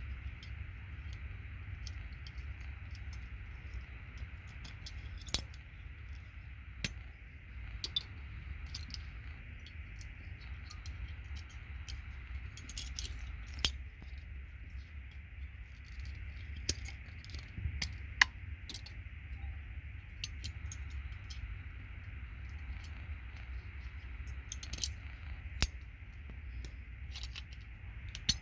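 Scattered sharp clicks and small metallic clinks of gold-plated RJ45 contact pins and their plastic housings being pulled apart by hand, over a steady low hum.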